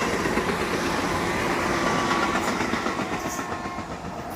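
A passenger train running past on the rails, its wheels clattering steadily over the track. The clatter fades as the train draws away near the end.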